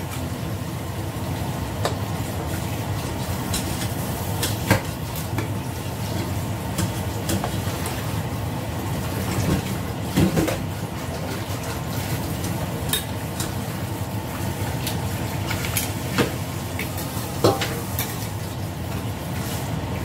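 Metal spatula stirring and tossing rice vermicelli in a large stainless steel pan, with scattered clinks and scrapes of metal on metal over a steady sizzle of frying.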